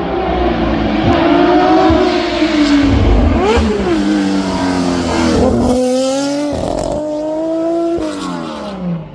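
Historic racing cars' engines accelerating past one after another. The engine pitch climbs and drops with gear changes, and a fresh engine note comes in about halfway through.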